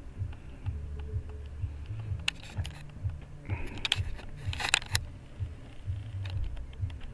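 Handling noise on a handheld camera's microphone: uneven low bumps and rubbing with small clicks, and two short bursts of rustling around the middle.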